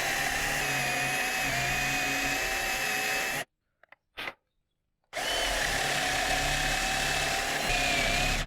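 Electric drill boring a 1-inch hole into wood, running steadily, stopping about three and a half seconds in, then starting again after a pause of a second and a half.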